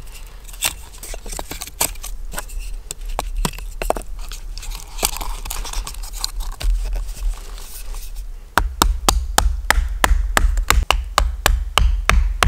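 Wooden pieces being handled and knocked together, then from about two thirds in a quick run of sharp knocks, about three or four a second, as wedges are hammered in to clamp a carving blank in a makeshift wooden vise.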